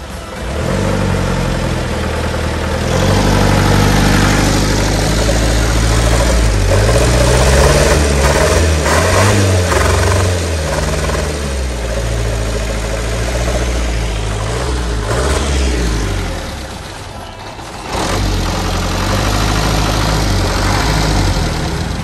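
Truck's diesel engine running, its revs rising and falling again and again, with a short drop in level about three-quarters of the way through.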